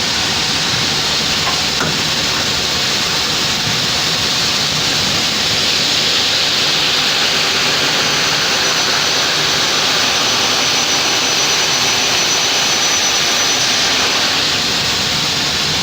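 Mecal Argus SW 452 CNC double-mitre aluminium saw running with its blades out, spinning without cutting, under a steady loud hiss from the blade coolant spray. A faint high whine rises above it for a few seconds midway.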